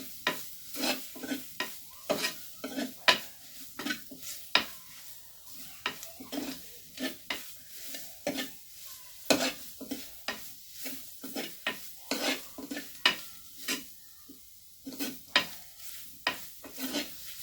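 Spatula stirring and scraping onion and spice paste frying in oil in a pan, in irregular strokes about one or two a second, over a light sizzle. The powdered spices are being sautéed until their raw smell cooks off.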